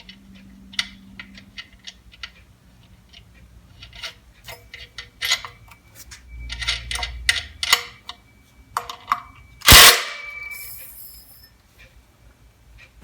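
Scattered metallic clicks and clinks of hand tools and parts while the nut is fitted onto a belt grinder's drive wheel, with one loud metal clank about ten seconds in.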